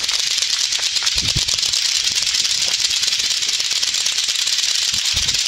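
Several lato-lato clackers, pairs of hard plastic balls on strings, knocking together rapidly at once, making a dense, steady clacking clatter.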